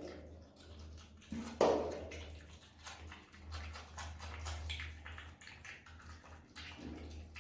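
A marmot chewing durian: wet smacking and quick clicking mouth sounds, with a brief louder pitched sound about one and a half seconds in, over a low steady hum.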